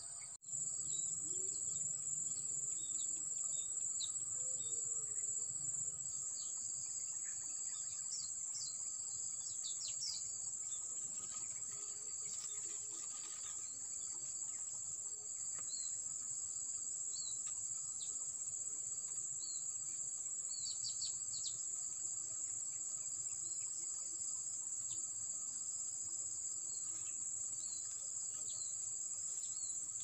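Steady high-pitched insect chorus with scattered short bird chirps throughout.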